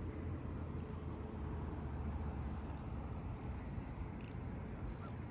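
Outdoor background noise: a steady low rumble, with faint, high, insect-like chirring coming and going in short patches.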